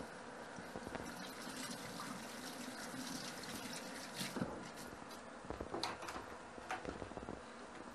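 Kitchen tap running water for about four and a half seconds, then a few light clicks and knocks.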